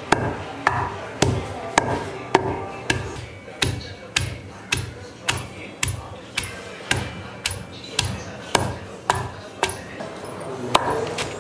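Pestle pounding in a stone mortar, crushing coconut, garlic and spices into a paste: steady, even strokes about twice a second, each a dull thud with a sharp knock of the pestle on stone.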